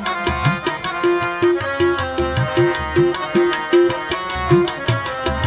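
Instrumental interlude of a Sikh shabad kirtan. Tabla keeps a steady rhythm of about two to three strokes a second, its bass-drum strokes sliding upward in pitch, under held melody notes.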